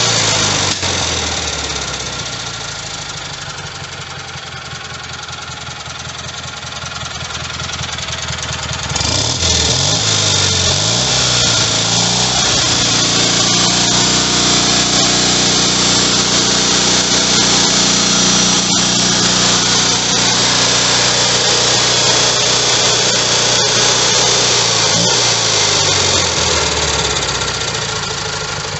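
Kohler Magnum M18 twin-cylinder engine running on a test stand, freshly rebuilt and still being tuned. Its speed drops to a slow run over the first few seconds, rises again about nine seconds in and holds steady at a higher speed, then falls back near the end.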